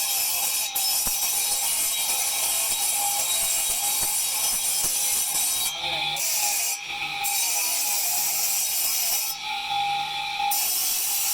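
A tool scraping and grinding marble with a continuous, hissing rasp that breaks off briefly three times: about six seconds in, about seven seconds in, and for about a second near ten seconds in.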